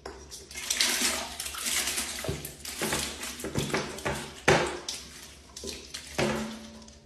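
Elbow macaroni being poured from a stainless steel bowl into a toilet bowl, splashing and sloshing into the water in uneven pulses. It is loudest over the first few seconds and tails off toward the end.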